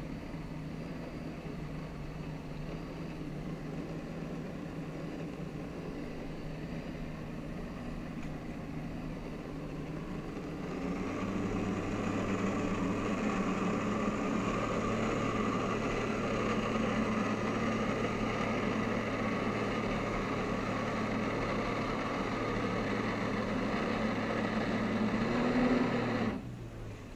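Jet ski engine running low at first, then throttled up and louder about eleven seconds in as it drives water through the hose to the flyboard. It holds there, then drops off suddenly near the end.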